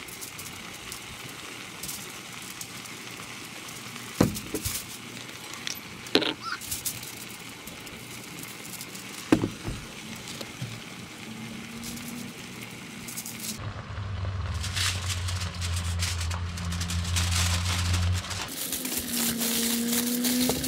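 Hands preparing fish on a table: a few sharp clicks in the first half, then aluminium foil crinkling near the end as it is folded around the trout. A low steady hum runs for a few seconds past the middle.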